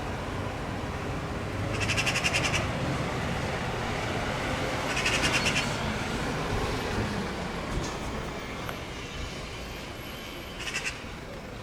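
Eurasian magpies giving their harsh, rapid chattering rattle in three short bursts, the mobbing alarm call they use against a predator, here the cat threatening their fledgling, over a steady background hiss.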